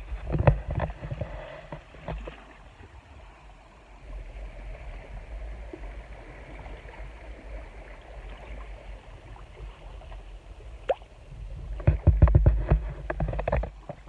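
Kayak paddle strokes on calm water: splashing and dripping in quick clusters near the start and again near the end, with a steadier watery wash between, over a low rumble.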